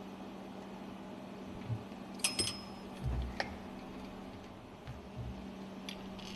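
A few sharp metallic clinks and a low thump from hand tools and parts being handled during fuel pump work, over a steady low machinery hum.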